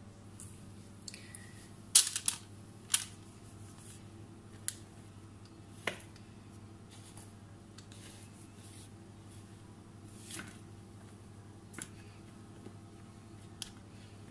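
A spoon and silicone spatula knocking and scraping against a mixing bowl as thick sponge-cake batter is poured and scraped out into a cake tin: scattered sharp clicks and knocks, the loudest about two and three seconds in, over a faint low hum.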